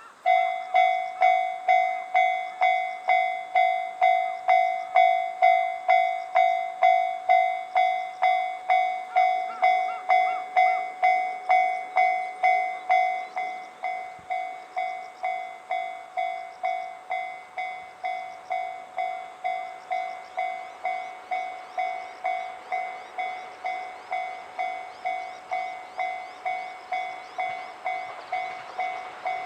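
Japanese railway level-crossing warning bell ringing about twice a second with an even, repeating ding. It drops to a lower volume about 13 seconds in and keeps ringing.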